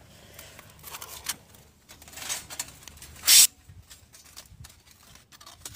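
Rustling and light metallic clicks as a perforated stainless-steel strainer is handled and fitted around a submersible pump's water inlet, with one loud, brief rustle about three seconds in.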